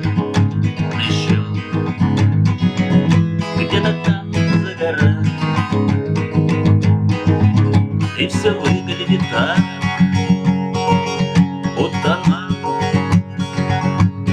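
Guitar music, chords on acoustic guitar played in a steady rhythm as the instrumental introduction to a song.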